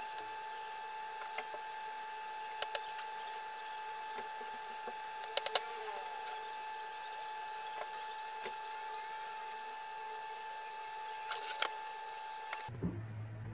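A steady high electrical whine runs under scattered light clicks and taps as a charred wooden board is handled and wiped with a cloth. Near the end the whine cuts off suddenly and a low hum takes over.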